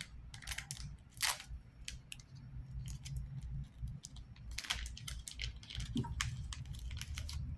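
Foil trading-card pack being handled and opened: irregular crinkling and crackling of the wrapper, with a sharp crackle about a second in and a busier run of crinkles around the middle.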